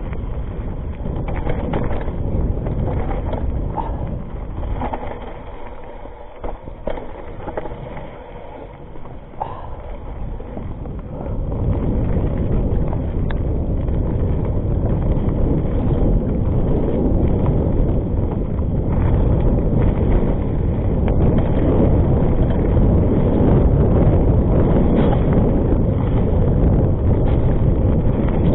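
Rockrider ST 520 mountain bike riding down a rough dirt and stone trail: tyres rolling over dirt, and the bike rattling and knocking over bumps, with wind rushing over the microphone. The rumble grows louder about eleven seconds in.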